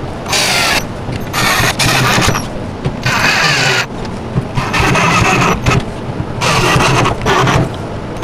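Cordless drill driving screws into the crib's side panel: a series of short bursts of the motor, each about a second long, with brief pauses between them as each screw is set.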